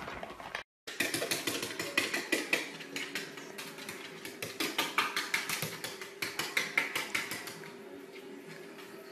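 Rapid, rhythmic tapping as a hand pats and rubs a pug's back while it lies on a wooden floor, several quick taps a second, growing fainter near the end.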